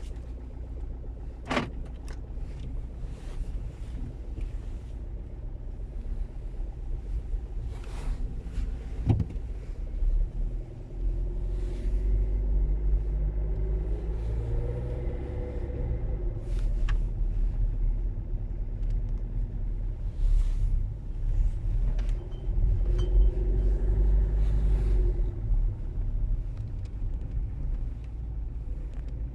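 Opel car with automatic transmission pulling away on a cold engine: a steady low rumble with a few sharp knocks in the first ten seconds, and engine tones that rise and fall twice as it drives off. It carries an odd noise whose cause the owner cannot work out.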